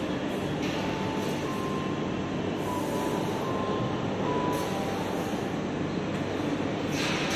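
Walk-on floor piano sounding short single notes at varying pitches, one after another, as its keys are stepped on. Behind it runs a loud, steady background noise.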